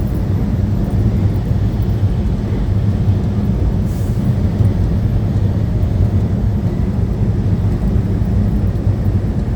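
Steady low drone of a semi truck's engine and road noise, heard from inside the cab while driving.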